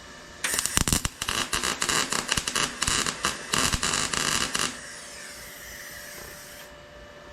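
Electric arc welding: an irregular, spitting crackle for about four seconds that stops abruptly, then a faint steady hiss.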